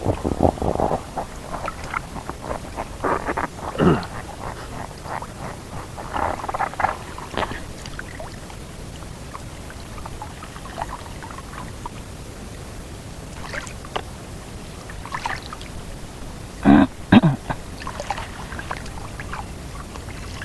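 Water splashing and trickling in irregular bursts around a wading angler, with a louder double splash near the end.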